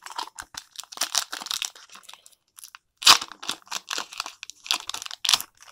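Pokémon trading cards being handled and flipped through: a run of short papery rustles and snaps, the sharpest about three seconds in.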